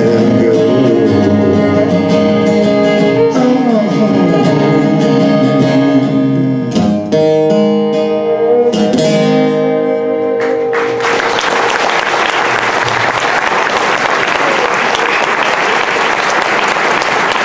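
Acoustic guitar and violin play the closing bars of a song, with a falling violin slide and then a final chord left ringing. About eleven seconds in, the music ends and audience applause takes over.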